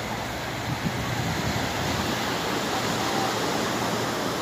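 Ocean surf breaking on a sandy beach, with wind on a phone microphone: a steady, even rushing noise.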